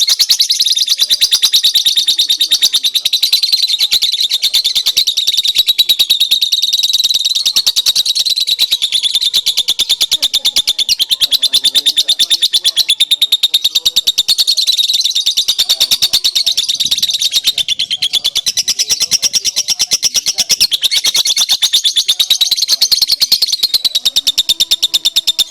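Lovebird singing one long, unbroken, high-pitched chattering trill of very rapid repeated notes.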